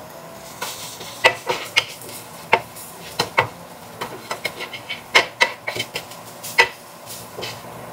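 Metal cooking utensils clinking and tapping against a frying pan and dishes while stir-frying, over a dozen sharp clinks at uneven intervals.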